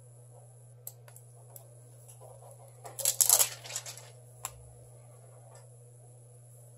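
Small clicks and, about three seconds in, a short burst of rustling, clattering handling noise as phone parts are handled on a workbench, over a steady low electrical hum.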